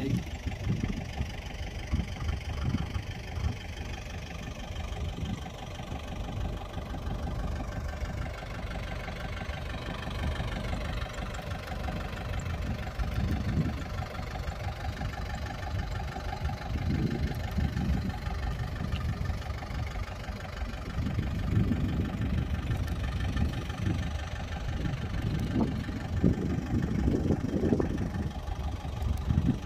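Kubota tractor's diesel engine running steadily, with uneven low swells in the sound through the second half.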